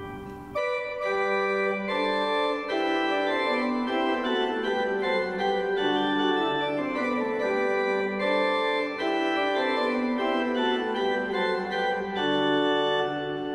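Pipe organ playing a canzona: several held notes overlapping and moving together, with a short break just after the start before the playing resumes.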